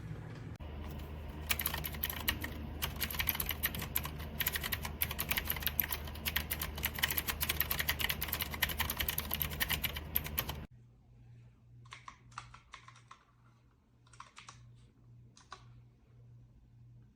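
Fast typing on an RK Royal Kludge S108 mechanical keyboard with clicky blue switches and round typewriter-style keycaps: a dense run of key clicks. About ten seconds in it cuts off sharply to a few scattered, quieter key presses.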